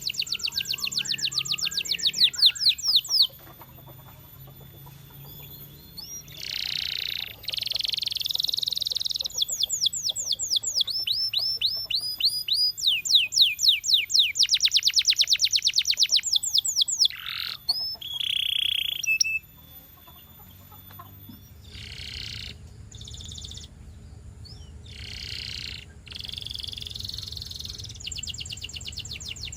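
Canary singing: fast trills of quickly repeated sweeping notes alternating with held high whistled notes, in phrases broken by short pauses.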